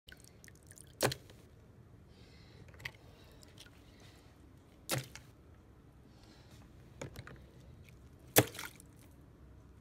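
Paintbrush handles knocking sharply against the plastic rinse tub as wet brushes are shaken off over soapy water: five separate knocks, the loudest near the end.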